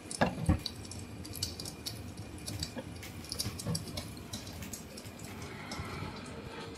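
Cast-iron wood-burning stove with a newly lit fire, crackling in scattered small pops, with a couple of sharper knocks in the first second.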